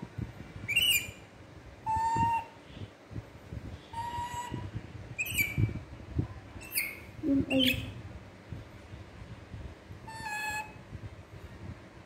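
Infant macaque giving short, high-pitched cooing cries, about seven of them a second or two apart, some pitched higher than others, with soft rustling of handling underneath.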